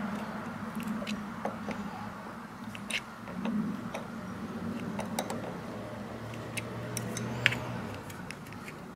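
Light metallic clicks and ticks of a small wrench working a car battery's terminal clamp nut, over a steady low hum, with one sharper click near the end.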